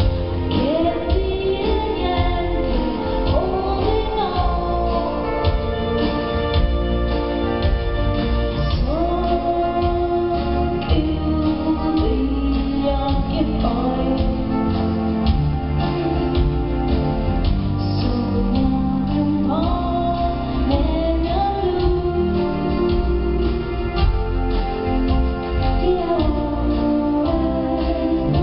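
Live pop ballad: women singing a duet into microphones over a full band, amplified through the hall's sound system and picked up from the audience.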